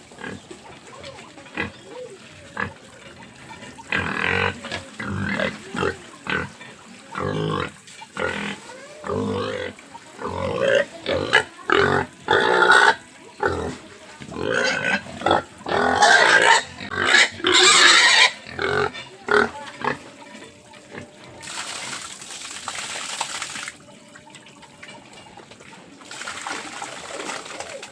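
Pigs calling: a run of short grunts and loud shrill squeals, loudest around the middle. Near the end come two stretches of steady rushing noise.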